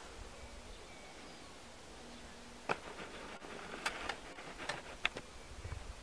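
Quiet outdoor background, then from a little under three seconds in an irregular series of sharp crunches and clicks: footsteps on a gravel path.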